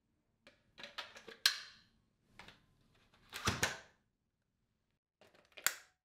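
Clear plastic bin of a Dyson Gen5detect cordless vacuum being handled and refitted: a string of hard plastic clicks and clacks, with a heavier clatter in the middle and a sharp snap near the end as the bin goes back onto the machine.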